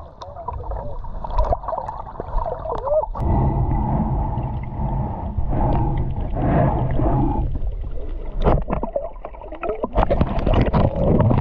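Muffled underwater sound from a camera held below the surface: water churning and gurgling, with wavering, muffled tones and a few sharp clicks.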